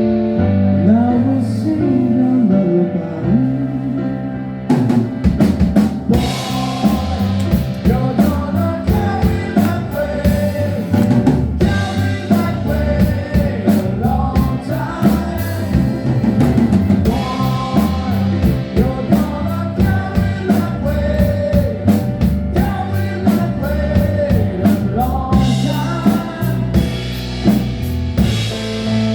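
Band music: a bass line and a melody line, joined by a full drum kit about five seconds in and running at a steady beat.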